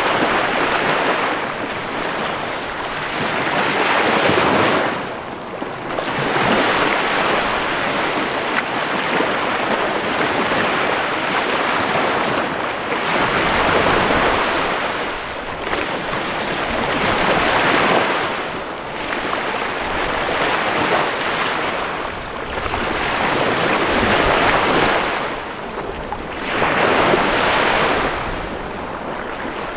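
Small waves of the Chesapeake Bay breaking and washing up on a sandy beach, the surf swelling and easing every few seconds.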